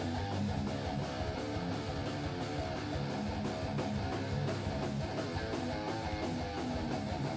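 Live metal band playing at full volume: electric guitar, bass guitar and drums, with a steady run of drum hits under the guitars.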